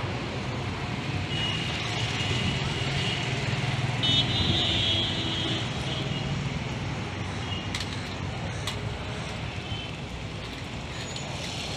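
A steady low engine drone, like a motor vehicle running nearby, with a few short high-pitched tones in the first half and two sharp clicks about eight seconds in.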